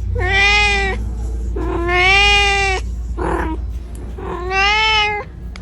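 Kitten meowing over and over, calling for its mother: three long, drawn-out meows and a shorter, rougher one between the second and third.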